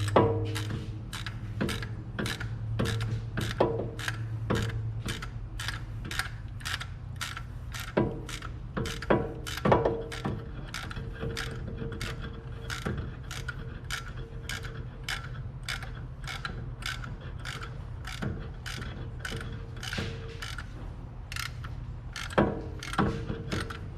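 Ratchet wrench clicking in steady, even strokes, about two clicks a second, over a steady low hum.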